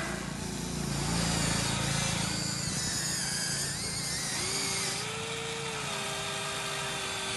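Electric motors of a Huina radio-controlled model excavator whining as it works its arm and boom. The pitch steps up a little past the middle and holds.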